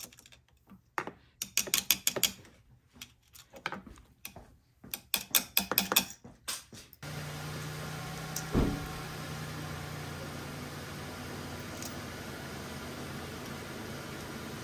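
Small metal clicks and scrapes of a flathead screwdriver turning the main jet in a small-engine carburetor, in two quick flurries. About halfway through, a steady low hum sets in, and a single knock comes a second and a half later.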